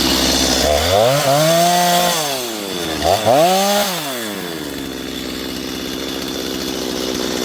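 Two-stroke chainsaw idling, revved up twice, about a second in and again about three seconds in, each time rising in pitch and dropping back to idle.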